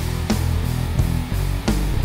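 Background rock music with a steady beat.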